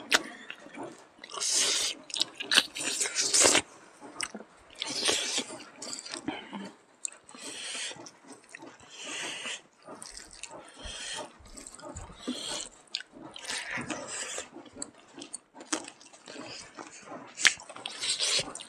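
Close-up wet chewing and lip-smacking of people eating smoked pork and rice by hand, in irregular bursts with sharp clicks now and then.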